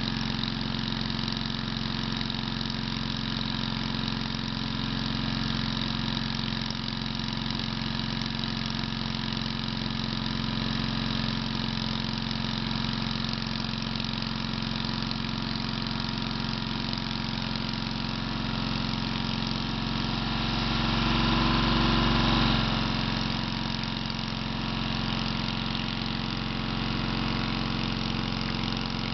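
Floating hookah-diving air compressor running steadily, its motor a continuous even drone that swells briefly about two-thirds of the way through.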